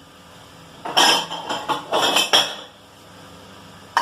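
Ceramic cups clattering and clinking as they are set into a dishwasher rack: a quick run of knocks about a second in, lasting under two seconds.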